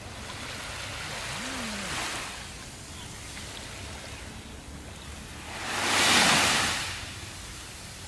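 Small waves washing onto a sandy beach: a soft wash in the first two seconds, then a louder wave spilling up the sand about six seconds in, over a steady hiss of surf.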